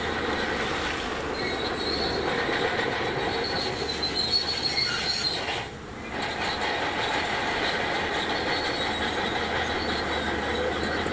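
Shantui DH17C2 crawler bulldozer moving, its steel tracks squealing and clanking over its running engine. The noise dips briefly about halfway through.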